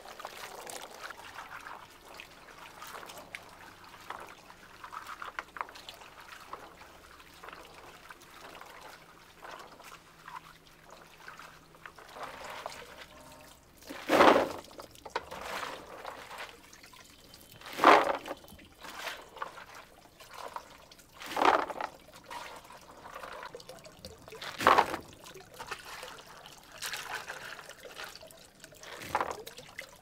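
Water pouring in five loud surges about three to four seconds apart, with quieter water sounds between them.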